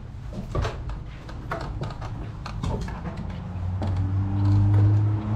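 Footsteps knocking irregularly on steep stairs as someone climbs, about two a second, with a low steady hum swelling in near the end.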